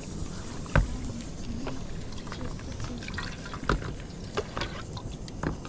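Liquid being poured and sloshed, with scattered light knocks and clicks of utensils and two louder thumps, about a second in and past the middle.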